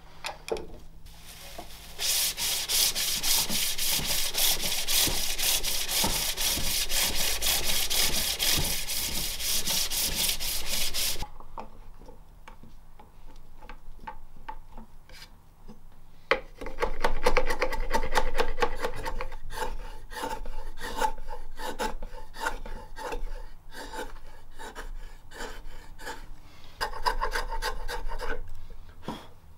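Fast, even scraping strokes on wood for about nine seconds, then, after a quieter pause, a hand chisel paring across the centre of a turned jacaranda plate in short, irregular cuts as chips come away.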